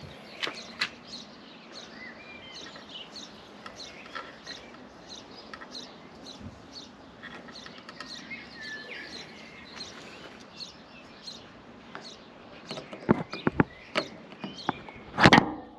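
Small birds chirping and twittering repeatedly in the background, with a few sharp knocks near the end.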